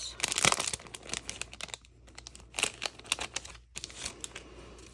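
Clear cellophane bag crinkling as it is opened and handled, a dense run of crackles in the first second, then scattered ones.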